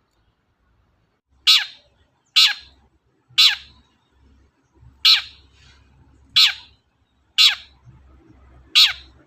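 Long-tailed shrike (cendet) giving seven harsh calls about a second apart, each sweeping steeply down in pitch, starting about a second and a half in.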